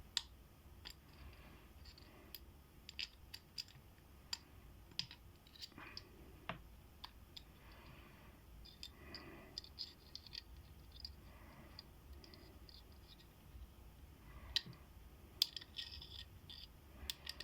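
Scattered light clicks and scratches of small metal lock picks and tools being handled and sorted through, as in a search for a particular pick.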